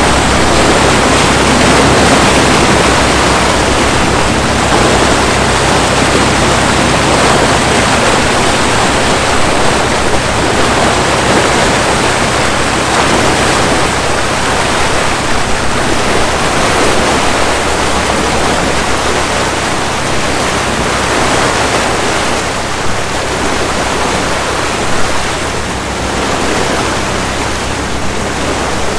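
Foaming white-water wake churned up behind a fishing boat running under way: a loud, steady rush of water, with a low engine hum underneath. It eases a little near the end.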